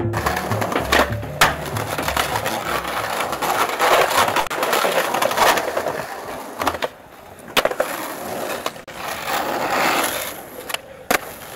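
Skateboard wheels rolling on concrete, with several sharp clacks of the board popping and landing.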